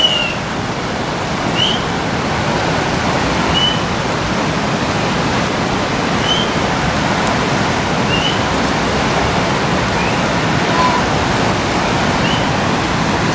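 Steady rushing water, like a mountain river or stream, with short high chirps every second or two over it.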